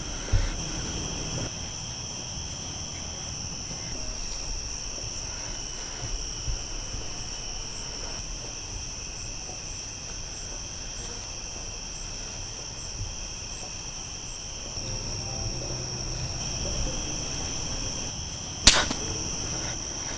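Crickets chirping steadily in a summer night backyard. There is a low thump just after the start, and a single sharp click near the end that is the loudest sound.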